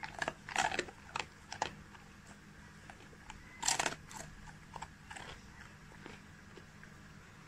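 Golden retriever biting and chewing a piece of chicken: a quick run of crisp crunches in the first couple of seconds, the loudest crunch about halfway through, then a few softer chews.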